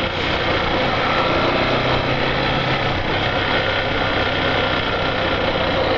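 Yamaha Factor 150 motorcycle's single-cylinder four-stroke engine running steadily while riding, under a steady rush of riding noise.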